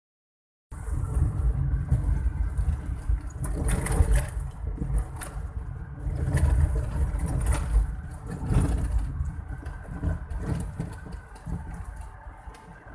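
Car driving slowly over a rough, rutted dirt track, heard from inside the cabin: a heavy low rumble with knocks and rattles as the car jolts over bumps. It quietens over the last couple of seconds.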